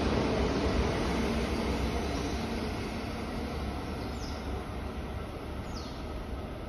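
JR East E2-series Shinkansen train pulling away from the station, its rumble and rail noise fading steadily as the tail car recedes down the line.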